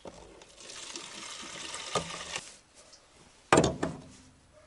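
Petrol poured from a metal jerry can into a car's fuel tank filler neck, a steady gurgling pour that stops after about two and a half seconds. A single loud knock follows about a second later.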